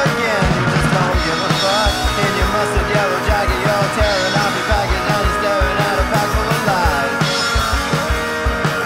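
Loud music with a steady drum beat and a wavering melody line over it.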